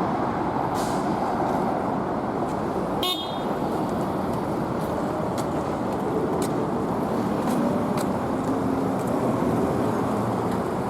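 Steady noise of road traffic, with a short high chirp about three seconds in and faint horn-like tones later on.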